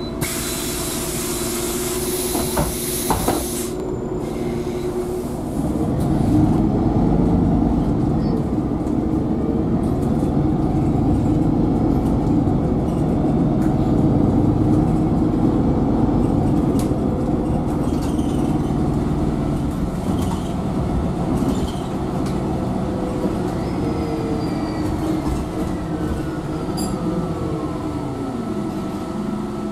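Pneumatic doors of a MAN NL330 Lion's City bus close with a loud hiss of air and a couple of knocks in the first few seconds. The bus then pulls away, its engine and transmission running up with road noise heard from inside the passenger cabin, and a whine falls in pitch near the end.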